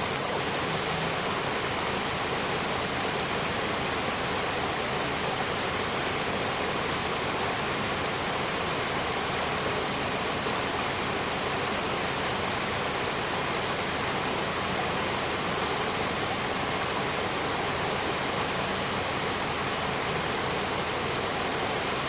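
Mountain valley stream rushing over rocks: a steady, unbroken water noise.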